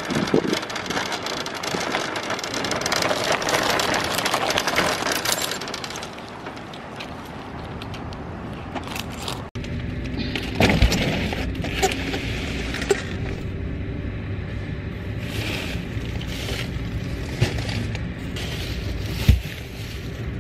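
Shopping cart rattling as it is pushed across parking-lot asphalt. Then grocery bags and a plastic-wrapped case of bottled water are set down on the carpeted floor of a car's cargo area, with plastic rustling and a few sharp thumps.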